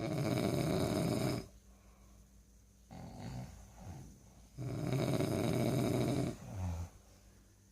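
A person snoring loudly: two long, rasping snores about four and a half seconds apart, with a quieter sound between them.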